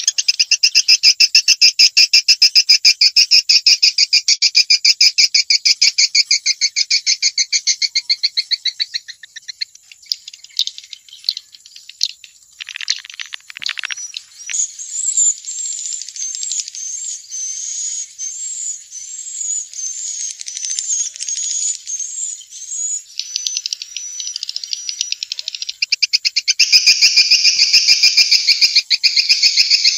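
Swiftlet calls: fast, high-pitched rattling chirp trills, loud at the start and again near the end, with a middle stretch of evenly repeated down-slurred chirps. This is a swiftlet calling sound of the kind played through tweeters to lure swiftlets into a nesting house.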